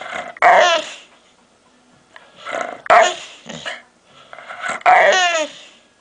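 A dog making strange pitched vocal noises in three short bouts, the last one sliding down in pitch.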